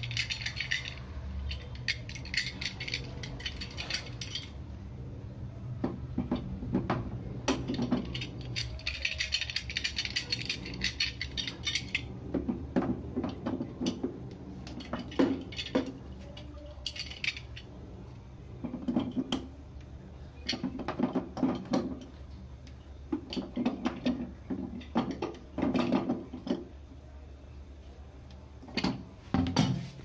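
Irregular clicks, knocks and clatter of toilet cistern flush parts being handled and fitted inside the cistern, coming in clusters with short pauses between them.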